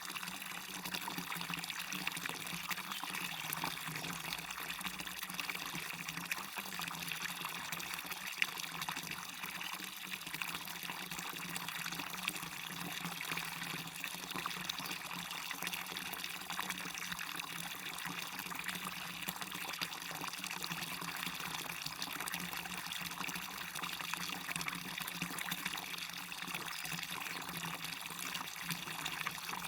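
Waterfall and stream water running, a steady unbroken rush.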